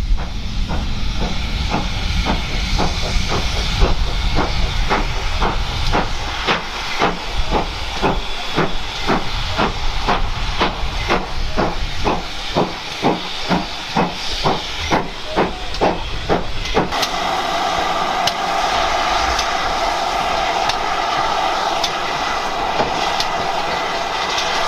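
A steam train getting under way with a regular beat of about two strokes a second that quickens slightly, over steam hissing. About two-thirds of the way in this stops and a steady loud hiss of steam from a standing GWR Hall-class steam locomotive takes over.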